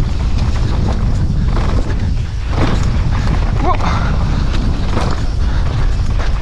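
Wind buffeting the microphone of a body-mounted action camera on a downhill mountain bike at speed, over the bike rattling and knocking across a rough dirt trail. A short squeal comes a little past the middle.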